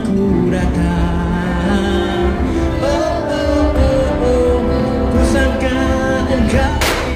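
Live amplified acoustic guitar with singing: a held, wavering vocal line over strummed chords. A brief hiss comes near the end.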